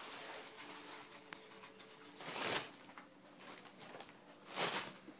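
Wrapping paper and tissue paper rustling and crinkling as a kitten scrabbles and pounces in it, in a run of small scratchy rustles with two louder crinkles, one about halfway through and one near the end.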